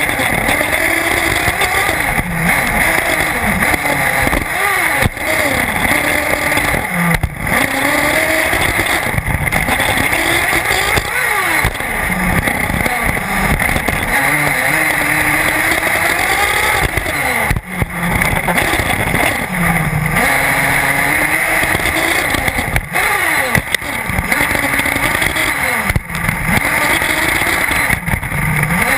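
Small nitro engine of a 1/8-scale Intech BR-5 RC buggy, heard on board, revving up and down over and over as it laps a dirt track.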